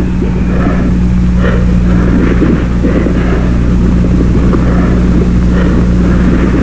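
A steady low mechanical hum, made of several constant low tones, with faint irregular sounds above it.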